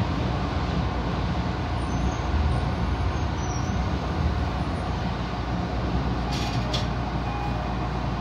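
Tokyo Metro Ginza Line 1000-series subway train running through a tunnel just after leaving a station, heard from the front of the train: a steady rumble and rush of wheels on rails.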